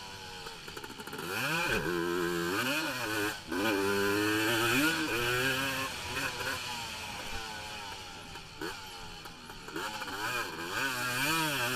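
450-class racing ATV engine heard from an onboard camera, revving up and dropping off again and again as the rider gets on and off the throttle over the jumps and through the corners.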